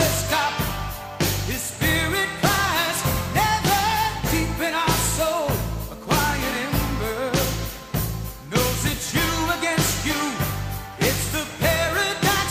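Background music: a song with a lead vocal over a steady, driving beat with heavy bass.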